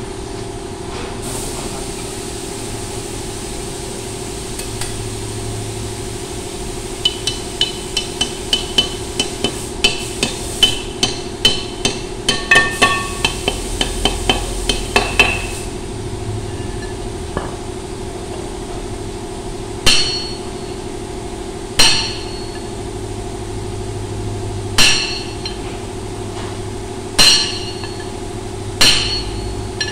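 Hammering on a forklift's steel wheel hub during a wheel-bearing job. First a quick run of light metal taps, several a second, then from about two-thirds in, single heavy blows every two to three seconds.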